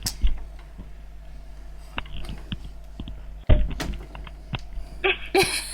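Handling noise: scattered light clicks and taps, with a heavy thump about three and a half seconds in, over a steady low hum.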